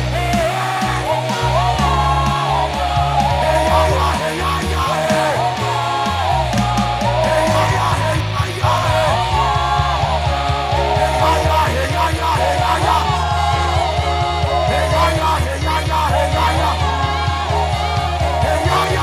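Live worship band playing, with steady bass and a sung or wordless vocal melody over it.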